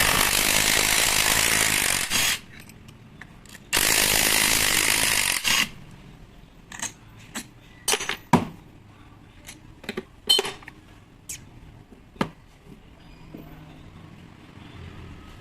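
A power tool run in two bursts of about two seconds each, with a short pause between, followed by scattered sharp clicks and knocks.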